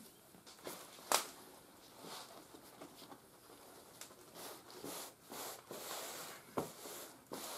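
Cloth and leather rustling as a cotton shirt is laid on a buckskin hide and smoothed flat by hand, in short brushing strokes. A sharp click about a second in is the loudest sound, with a second one near the end.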